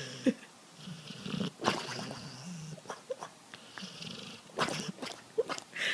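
A sleeping dog making soft rumbling snores and breathing noises in its sleep, with two short squeaky whimpers, one just after the start and one near the end.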